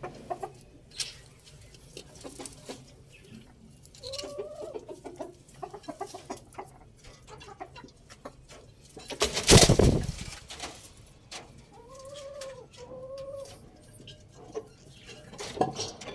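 Chickens clucking in short arching calls, once about four seconds in and twice more near the end. Midway there is a loud rush of noise lasting about a second and a half.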